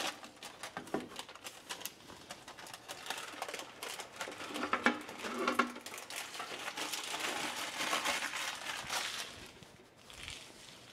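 A paper sheet crinkling and rustling as shredded cheddar is tipped and shaken off it into a saucepan of milk: a dense run of small crackles that dies away near the end.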